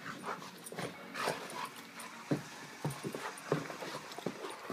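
Dogs play-wrestling: irregular scuffling with short breathy huffs and soft knocks.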